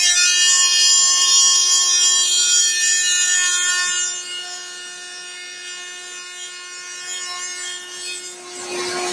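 Table-mounted router with a mitre lock cutter running with a steady whine while a board is fed through it. The cutting noise is loud for about the first four seconds, then falls away as the board clears the cutter and the router spins on freely.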